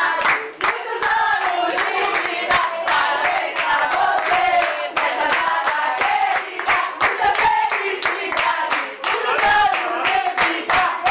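A group of people singing together while clapping their hands in a steady rhythm.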